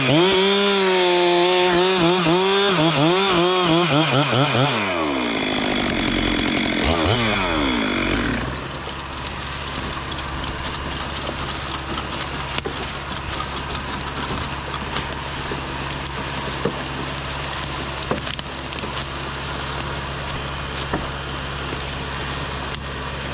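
Stihl MS 462 chainsaw making a test cut in wood at full throttle, its pitch wavering under load, then dropping off about five seconds in. After a brief rev near eight seconds, a steady low engine idle runs on.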